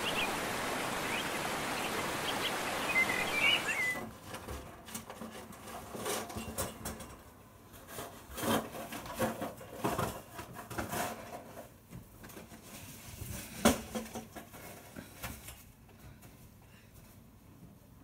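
A rushing stream with birds chirping, cutting off abruptly about four seconds in. Then irregular scrapes and knocks of snow shovels pushing snow across a trampoline mat, with one sharper knock partway through.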